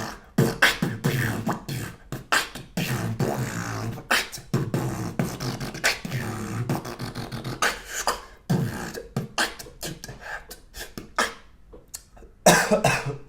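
Human beatboxing, done with chilli in the mouth: a fast, dense run of sharp percussive mouth strikes and hisses, with hummed low notes between them.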